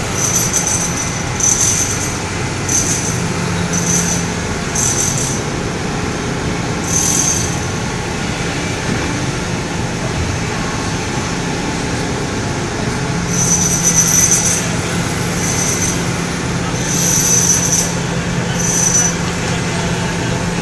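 Sany SY365H excavator's diesel engine running steadily, with repeated short, high-pitched metallic squeals from the working machine. The squeals come in clusters, several in the first seven seconds and more from about halfway through.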